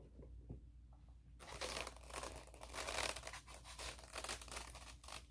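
Packaging crinkling and rustling as it is handled: dense, rapid crackles that start about a second and a half in and carry on, fairly faint.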